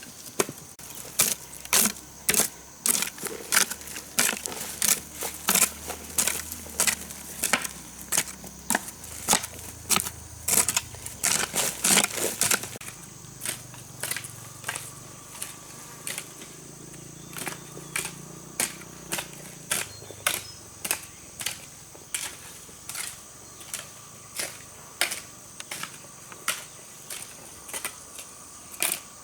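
Repeated sharp strikes of a hand tool, about two blows a second, louder in the first half and lighter after about twelve seconds. A steady high insect drone comes in about halfway.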